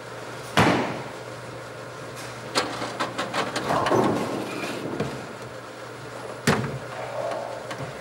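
Bowling alley ambience: a steady machine hum with sharp knocks and clatters of balls and pins. The loudest knock comes about half a second in, a run of quick clicks and a rattle follows around the middle, and another sharp knock comes near the end.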